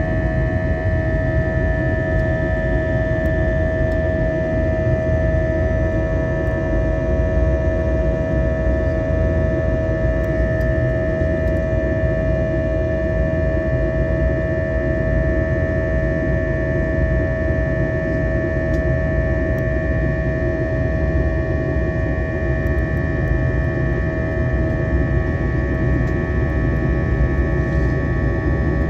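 Jet airliner cabin noise during the climb after takeoff: the turbofan engines' steady low rumble with a steady whine over it.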